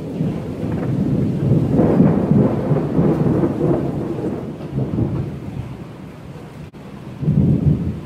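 Thunder rumbling, swelling over the first two seconds and slowly dying away, with a second short rumble near the end. Rain falls steadily underneath.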